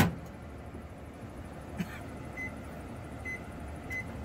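Microwave oven: a loud clack as the door is shut, then three short keypad beeps about a second apart as the cooking time is entered.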